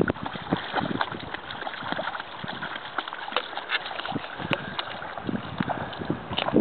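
Dogs wading through shallow pond water, their paws splashing in quick, irregular little sloshes.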